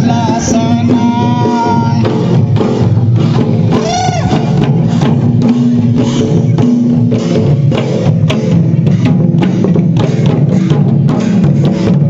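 Folk dance music led by a double-headed barrel drum of the mandar type, beaten by hand in a fast, steady rhythm. A pitched melody sounds over the drumming during the first couple of seconds and again about four seconds in.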